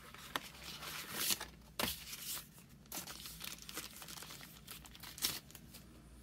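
Crinkling and rustling of smartphone packaging being handled: the cardboard insert of the box and the thin plastic bag around a clear phone case. Uneven rustles with a few short sharp clicks.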